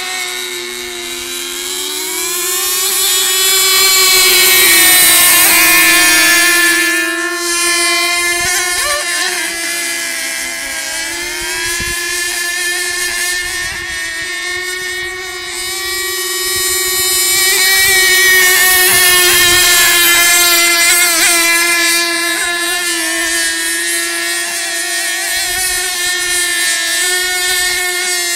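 Radio-controlled racing boats running at speed, their engines a continuous high buzzing whine with brief pitch glides as boats pass. The sound swells as the boats come close, around five seconds in and again around nineteen seconds, and fades between.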